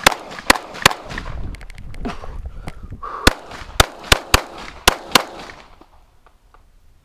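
Glock pistol firing rapid shots in two strings. Three quick shots come at the start. After a pause of about two seconds, six more follow in quick succession.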